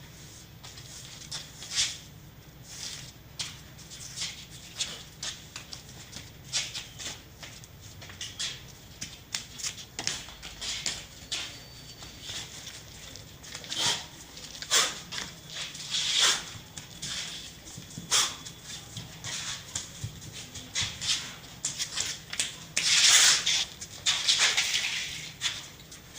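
A woman coughing in short, irregular fits, with a longer, louder bout about 23 seconds in: the chronic asthmatic cough.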